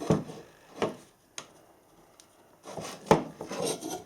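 Small clicks and knocks of parts being handled while reassembling an angle grinder's wiring and cable grip, about four separate knocks with light rustling between; the sharpest knock comes about three seconds in.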